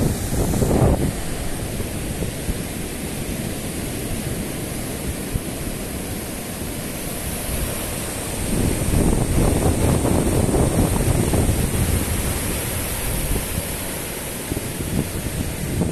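Ocean surf breaking and washing up a sandy beach, a steady hiss, with wind buffeting the microphone in gusts: a loud rumble about a second in and again for several seconds from about halfway through.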